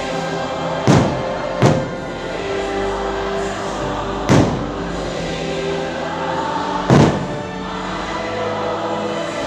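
Four firework shells bursting, with booms about one, one and a half, four and seven seconds in, over orchestral music with a choir singing.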